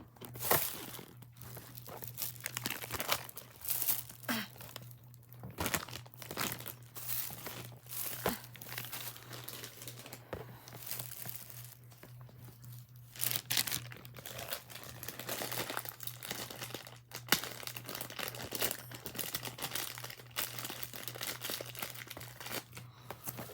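Plastic toy packaging crinkling and tearing in irregular bursts as it is handled and pulled open. A steady low hum sits underneath.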